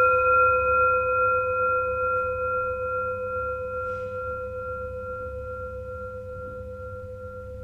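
A struck bell ringing on after the strike: a clear tone around 500 Hz with a few higher overtones, fading slowly.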